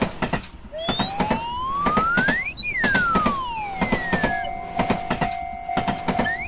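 Cartoon railroad-crossing warning sounds: a crossing bell striking over and over, with a siren-like tone that glides up for about two seconds, falls back down, then holds one steady pitch.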